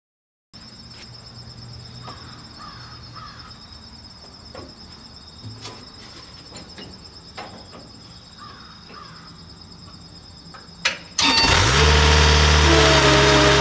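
Quiet outdoor background with a few faint bird calls and small clicks, then about eleven seconds in a skid steer loader's engine cranks, starts and settles into a loud steady run.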